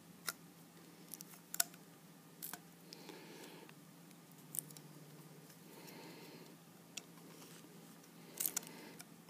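Faint, scattered clicks and rubbing of small plastic parts being handled and pushed together: a Venturi mask's colour-coded jet adapter and oxygen tubing connector being fitted, with a quick run of clicks near the end.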